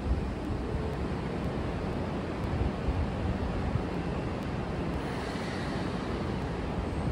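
Keisei 3000-series electric commuter train at the platform starting to pull out: a steady low rumble and hiss, with a faint high motor whine coming in near the end.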